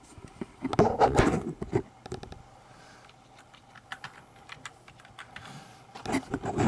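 Irregular clicking and clattering of things being handled at a desk, with a loud jumble of clicks about a second in, scattered single clicks after it, and another jumble near the end.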